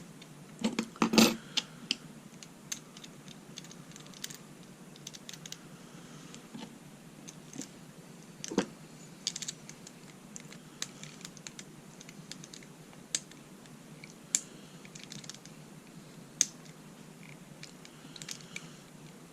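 American Lock 1100 padlock being reassembled by hand: scattered light metal clicks and taps as the cylinder and parts are handled and fitted back into the lock body, with a louder cluster of clicks about a second in.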